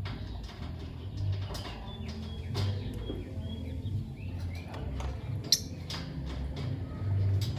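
Lovebirds giving scattered short, sharp chirps and clicks, the sharpest about five and a half seconds in, over a low, uneven background rumble.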